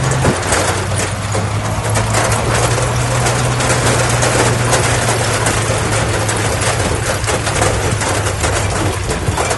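Heavy diesel engine of earthmoving machinery running steadily, its pitch dropping a little just after the start, over a dense clatter of short clicks.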